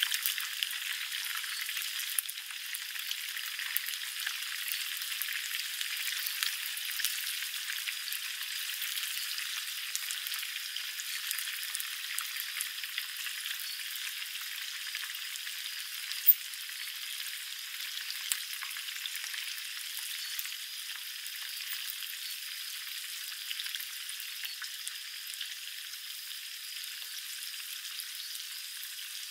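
Food deep-frying in a pan of hot oil: a steady sizzle full of small crackles and pops, loudest at the start and easing off slowly. One sharp pop stands out about sixteen seconds in.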